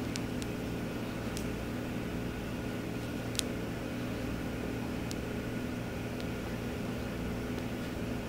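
Steady low machine hum, with a few faint ticks from a metal crochet hook and fingernails working yarn by hand, the clearest about three and a half seconds in.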